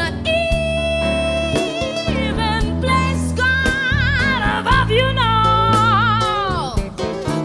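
A woman singing high, held notes with strong vibrato over an instrumental accompaniment with steady low notes. About six and a half seconds in, one note slides downward.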